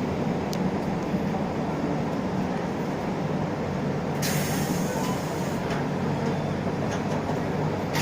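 Interior running sound of an Isuzu Erga LV290 city bus with its four-cylinder diesel: steady engine and road noise. About four seconds in comes a short hiss of air from the bus's air system, fading within about a second.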